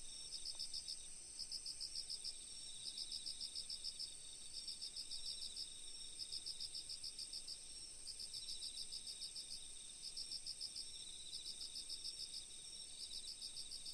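Crickets chirping faintly in short pulsed trills that repeat about once a second, over a steady high insect whine.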